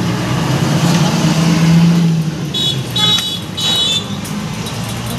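Roadside motor traffic: a vehicle's engine hum swells as it passes close, then a few short, high horn toots sound about three seconds in.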